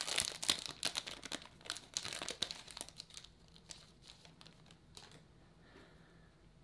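Foil wrapper of a baseball card pack crinkling and tearing as it is pulled open and the cards are slid out; the crackling is dense at first and thins to a few faint clicks after about three seconds.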